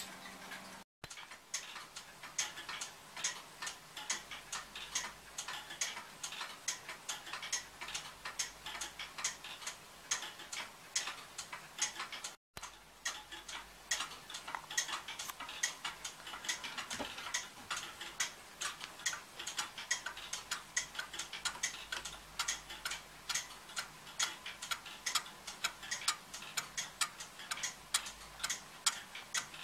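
Brewster & Ingrahams spring-driven wall clock with a horizontal movement and offset pendulum, running with an even tick-tock of sharp clicks. The sound drops out briefly twice.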